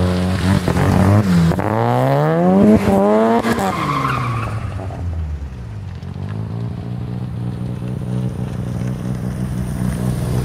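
Car engine revving up and down repeatedly while the car spins donuts, with a brief tire squeal about four seconds in. The engine then drops to a lower, steady run and picks up again near the end.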